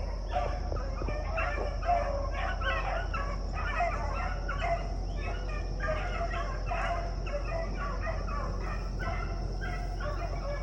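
Pack of beagles baying while running a rabbit, many short overlapping yelps and chop mouths, several a second, the dogs giving mouth on the track.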